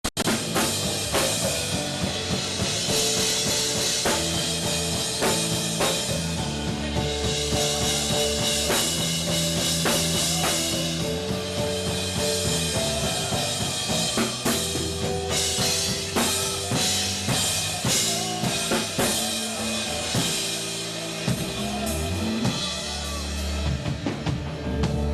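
Live band music with a full drum kit: kick, snare and cymbals keep a steady beat under sustained bass and keyboard notes.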